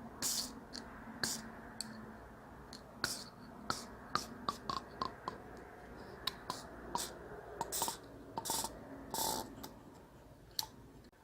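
Irregular small clicks and taps of plastic laptop parts and a fan assembly being handled and fitted together, some with a brief hiss, over a faint low hum.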